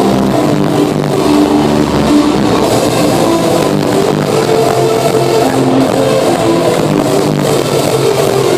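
Loud hardstyle dance music with a dense, distorted-sounding melody.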